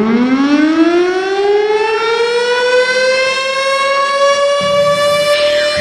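Air-raid siren winding up: one loud tone that rises steeply, then levels off and holds near its top pitch.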